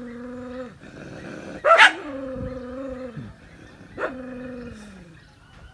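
A dog barking twice, each bark drawn out into a steady baying tone of about a second that drops away at its end. The tail of an earlier bark opens the stretch.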